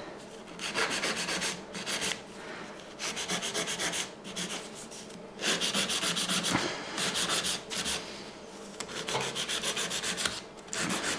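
Hand nail file rasping across the side of an artificial nail in quick back-and-forth sawing strokes. The strokes come in short bursts separated by brief pauses.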